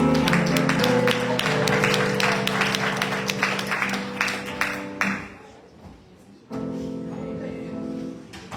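Church music of held keyboard chords with applause from the congregation over it; the clapping and chord stop about five seconds in, and another held chord sounds a little later.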